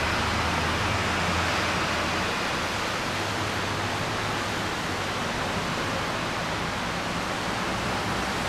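Steady rush of city road traffic: tyres and engines blending into an even hiss. A low engine drone fades out in the first two seconds or so.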